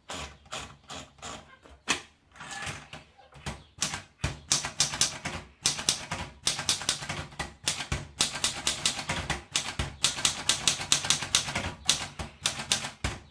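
Royal Royalite 100 portable manual typewriter being typed on: quick runs of sharp keystroke clacks, several a second, broken by a few short pauses and a couple of heavier knocks.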